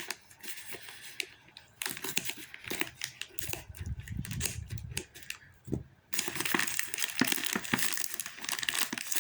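Shipping package being torn open, its wrapping crinkling and ripping in two long bouts of rustling and tearing, with a brief pause about six seconds in.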